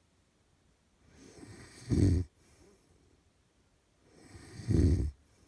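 A man snoring in his sleep: two loud snores about two and a half seconds apart, each swelling for about a second and then cutting off sharply.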